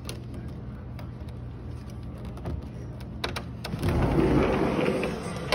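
Steady low mechanical hum with a few sharp clicks a little after three seconds in, then a louder burst of rumbling noise about four seconds in that lasts about a second.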